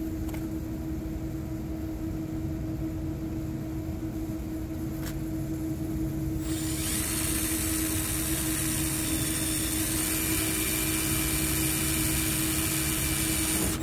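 A Milwaukee cordless drill with a very small bit starts about halfway through and runs steadily, boring a stop hole at the end of a crack in the metal to keep the crack from spreading. Under it is a steady machine hum with a fixed tone.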